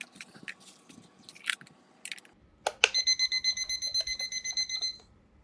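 Batteries clicking into a small digital table clock, then the clock beeping as it powers up: a rapid run of high beeps lasting about two seconds.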